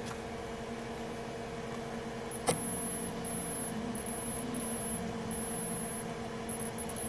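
Steady machine hum with a constant mid-pitched tone. A sharp click about two and a half seconds in, after which a faint, very high-pitched whine comes and goes in short stretches.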